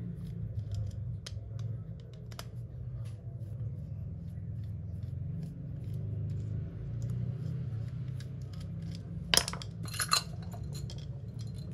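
Screwdriver turning out the screws on the underside of a Yamaha Y125 motorcycle carburetor, with scattered light metallic ticks and clicks. There are two sharper metal clinks near the end, over a low steady hum.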